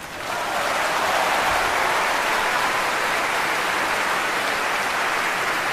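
Large audience applauding, swelling in over the first second and then holding as a steady, dense clatter of clapping.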